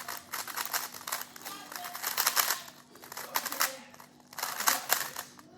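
Rapid clicking and clacking of a GAN 356 X speedcube being turned fast, in runs of quick turns with short pauses between them.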